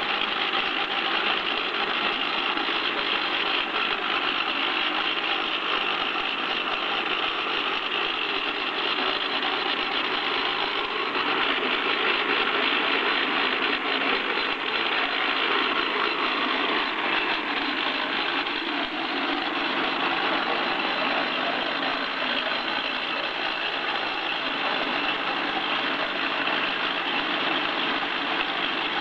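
YYTZ28-2 handheld rock drill running, a loud, steady, unbroken mechanical noise.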